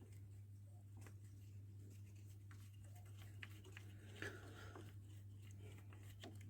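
Near silence: a faint steady low hum with a few faint, irregular clicks.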